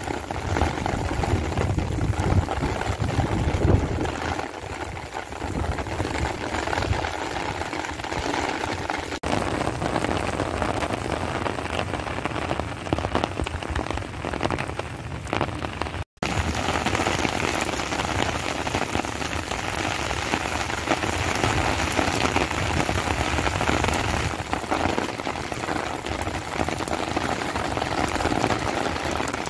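Heavy monsoon rain pouring onto a wet street and pavement: a steady, dense hiss of falling rain. Low wind rumble is mixed in during the first few seconds, and the sound breaks off for an instant about sixteen seconds in.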